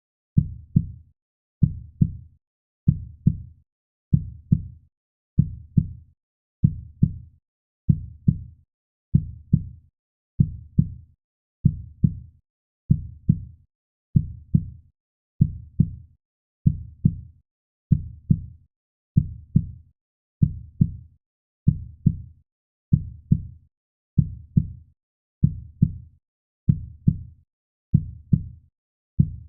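Heartbeat sound: a steady, even rhythm of paired low thuds (lub-dub), about one beat a second.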